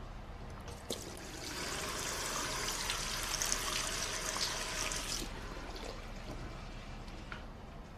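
A short click, then water running for about four seconds, starting and stopping abruptly.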